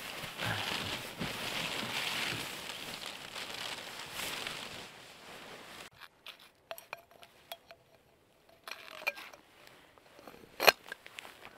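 Nylon sleeping bag and clothing rustling as a camper climbs out of the bag, an even rustle lasting about six seconds. It then drops to a quiet stretch of scattered small clicks and clinks, with one sharp click near the end.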